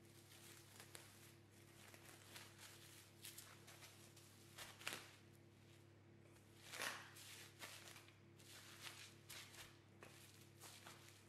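Faint crinkling and rustling of plastic cling film as it is folded and pressed around a disc of pastry dough, in irregular crackles that are loudest about five and seven seconds in. A steady low hum sits underneath.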